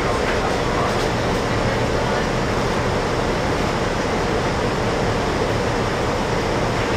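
A VIA city transit bus idling while stopped, heard inside the passenger cabin as a steady drone.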